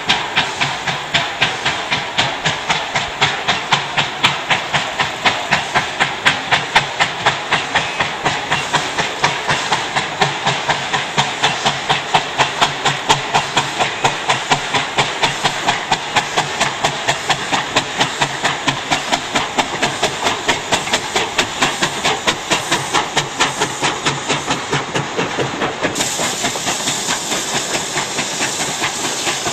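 Steam locomotive working hard as it hauls a passenger train past, its exhaust beating rapidly and evenly at about three chuffs a second. Near the end the beats blur into a steadier rush as the coaches roll by.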